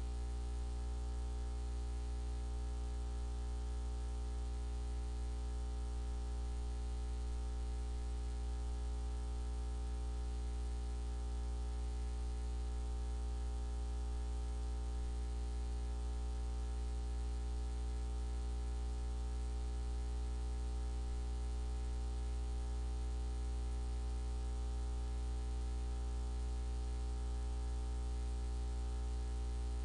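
Steady electrical hum and buzz with a faint hiss, unchanging, on the broadcast audio line with no programme playing.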